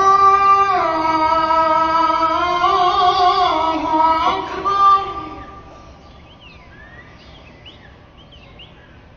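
Imam's drawn-out chanted takbir, 'Allahu akbar', held on long gliding notes, calling the congregation into the bow (ruku) of the prayer. It ends about five seconds in, and faint bird chirps follow.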